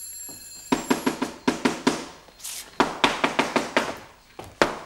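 Electric doorbell ringing in quick rattling bursts of about five or six strikes a second, calling a servant to the front door; a single sharp knock comes near the end.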